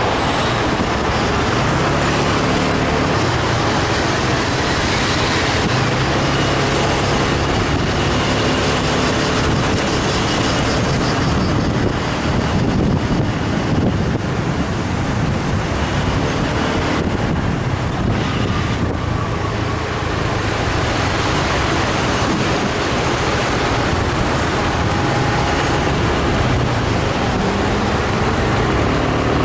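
Steady noise of riding a motorbike through city traffic: the bike's engine running under a continuous rush of road and air noise, with car traffic around it.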